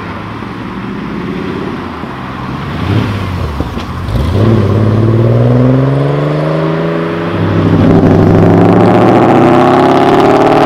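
Volkswagen VR6 six-cylinder engine running at low revs, with a short rev about three seconds in. From about four seconds in it accelerates hard, its note climbing steadily. The note breaks off at about seven and a half seconds, then it pulls hard again, louder, to the end.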